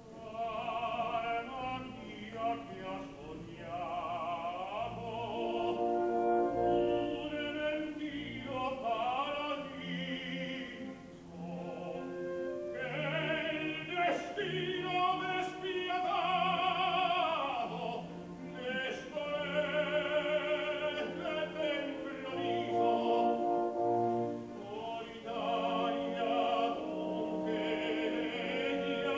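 Operatic singing with wide vibrato over orchestral accompaniment, starting with the window and continuing as long sung phrases.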